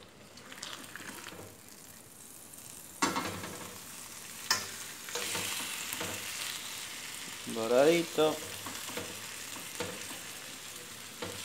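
Pork matambre sizzling in its fat on a hot griddle plate fresh from the oven, as it is lifted and turned with a fork. The sizzle picks up about three seconds in, with a few sharp clicks of the fork against the metal plate.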